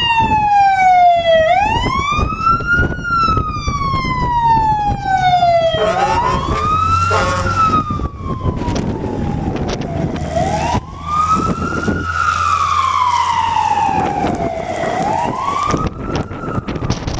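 Emergency vehicle siren on a slow wail, its pitch rising quickly then falling slowly, four times at about four-and-a-half-second intervals, over a noisy background and a low steady hum.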